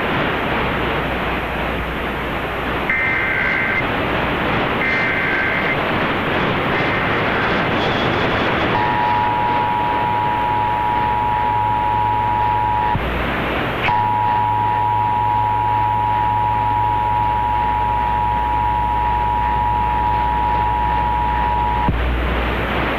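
Emergency Alert System test tones received over the radio through heavy static: three short warbling bursts of the digital SAME header about two seconds apart, then the steady two-tone EAS attention signal, broken briefly near the middle. These tones open the statewide Required Monthly Test, whose spoken message follows.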